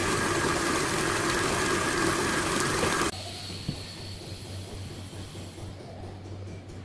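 Electric stand mixer running, its flat beater creaming butter and sugar in a steel bowl, then stopping abruptly about three seconds in, leaving a low steady hum.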